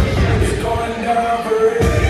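Dance music with a singing voice over a heavy beat. The beat drops out for about half a second near the end and comes back with a sharp hit.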